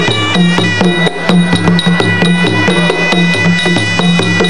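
Traditional Kun Khmer ringside music: drums keeping a steady beat under a high held note.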